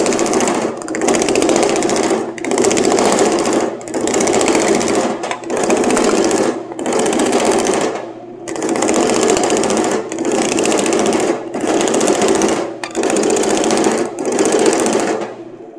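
Dake power hammer running its thumbnail shrinking dies, hammering rapidly on a soft aluminium panel to shrink and shape it. The hammering comes in about a dozen short runs of a second or so, with brief pauses between as the panel is stepped along.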